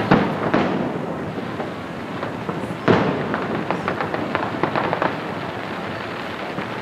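Aerial fireworks shells bursting: a couple of sharp booms near the start and the loudest one about three seconds in, with a run of small crackles between them that fades toward the end.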